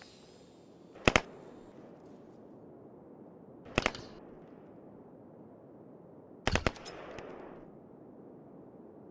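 Small-arms gunfire: three short bursts of a few rapid shots each, spaced a few seconds apart, the last burst trailing off in an echo.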